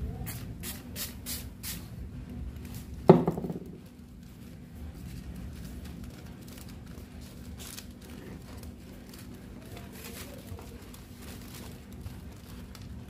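Light handling noises from model-building work: a few small clicks, then a sharp knock with a brief ringing about three seconds in, then faint rustling and tapping, over a steady low hum.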